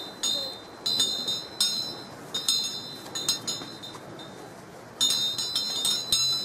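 High, bell-like chiming notes struck in short clusters, about one to two a second, pausing for a moment about halfway through before starting again.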